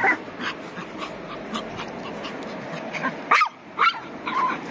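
A small dog gives two short, sharp, high-pitched yips about half a second apart, some three seconds in, followed by a fainter one near the end.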